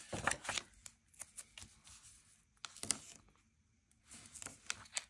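Cardstock being handled and slid on a craft mat while double-sided tape is pulled from its roll and pressed along a folded edge: scattered short paper rustles and taps, with one sharper click about three seconds in.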